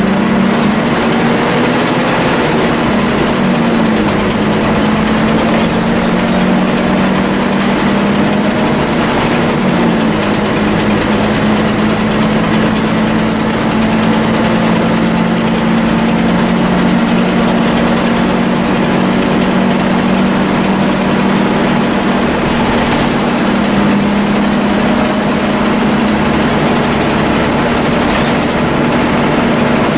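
Volvo B10BLE bus's six-cylinder diesel engine running with a steady whine, the hoover-like whine and ticking these buses are known for. The pitch shifts slightly a few times.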